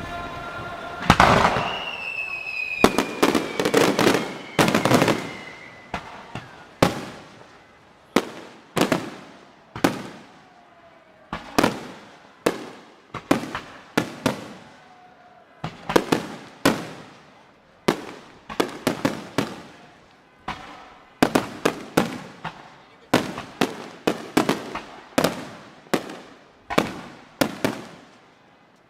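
Aerial fireworks shells bursting one after another, each sharp bang trailing off in an echo. A dense barrage comes in the first few seconds, then separate bangs roughly a second apart that bunch into quick runs of several bangs later on.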